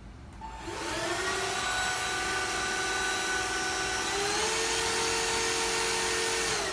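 TINTON LIFE cordless stick vacuum switched on: its motor spins up with a rising whine and runs steadily, then steps up to a higher pitch about four seconds in as it is switched from medium to high power, and winds down as it is turned off near the end.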